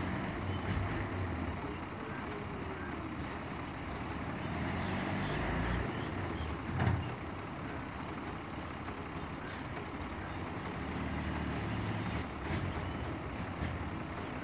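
Heavy tipper truck engines running while their dump beds are raised to unload earth, with one short, loud burst about seven seconds in.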